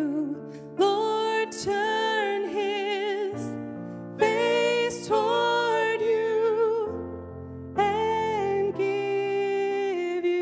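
Live worship song: sung held notes with vibrato over a keyboard and acoustic guitar, the chords changing every second or two.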